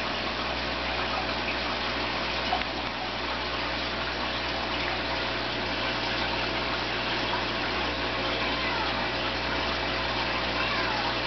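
Steady aquarium water noise: an air line bubbling and water churning, over the steady hum of a pump.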